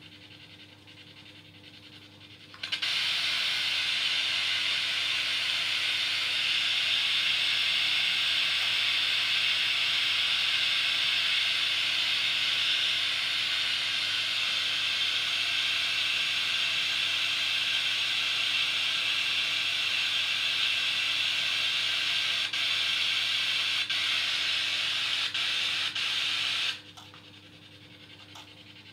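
Steady hiss of radio static from a spirit box tuned for airwaves, switched on about three seconds in and cutting off suddenly a couple of seconds before the end. A few faint ticks come near the end over a low steady hum.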